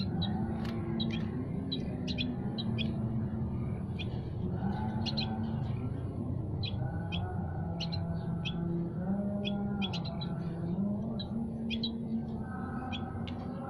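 Caged songbirds in a small aviary chirping and calling in short sharp notes, many times at irregular intervals. Beneath them runs a steady low hum whose pitch shifts every second or so.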